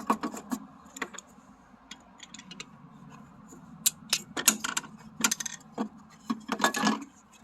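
Irregular clicks and plastic clatter as the start relay is worked off a mini fridge compressor's terminals, in several short clusters.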